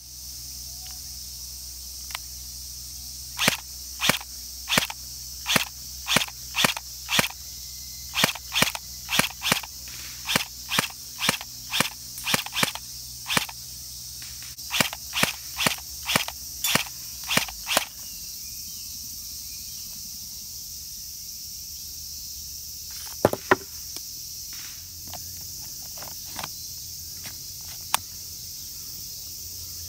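Tokyo Marui M9A1 electric airsoft pistol firing semi-automatic: dozens of sharp single shots, about two a second, stopping about 18 seconds in, with a few scattered clicks after. A steady high insect drone runs underneath.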